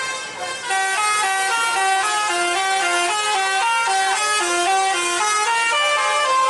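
Basuri telolet musical horn on a tour bus playing a fast melody of short stepped notes without pause, getting louder about a second in.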